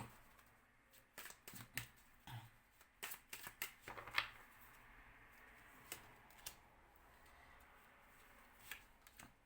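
Tarot cards being handled on a table: a scatter of faint short taps and slides, busiest in the first half, then a few isolated taps.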